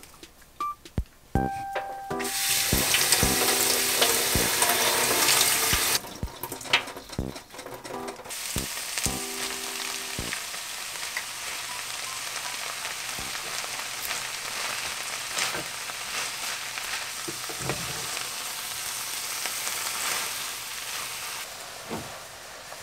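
Frying pan of tofu-noodle pad thai sizzling as bean sprouts and garlic chives go in: a few knocks, then loud sizzling for a few seconds, a brief lull, then a steady sizzle with occasional clicks of stirring.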